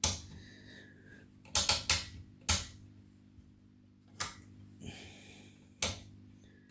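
About six sharp, irregularly spaced clicks of the front-panel switches and selector knobs on a Scopex 4D10 oscilloscope being changed, over a faint steady low hum.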